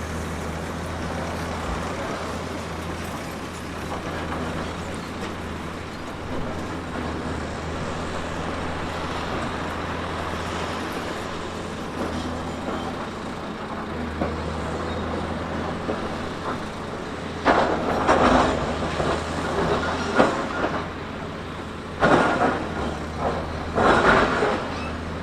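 Diesel engine of a heavy earthmoving machine running steadily. Two spells of louder clattering noise come about two-thirds of the way in and again near the end.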